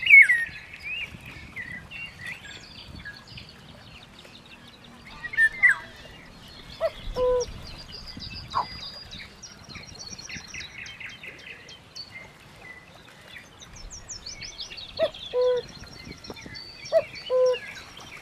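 Mixed birdsong and bird calls at a pond: many high chirps and trills, with a loud falling call at the start. A short low two-note call repeats several times.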